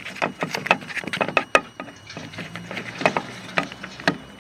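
Irregular clicks and knocks of hard plastic and metal parts inside a car door as the door handle's linkage bar is lifted and the handle worked loose, with one sharper knock about a second and a half in.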